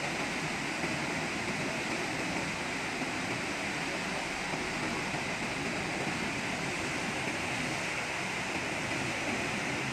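Steady rushing of flowing floodwater, an even noise that does not change.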